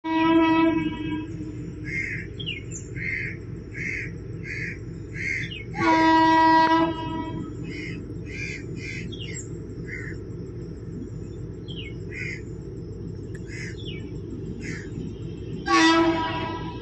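Indian Railways train horn sounding three blasts, one near the start, one about six seconds in and one near the end, each about a second long. Between the blasts a bird calls over and over, short calls about one every 0.7 seconds.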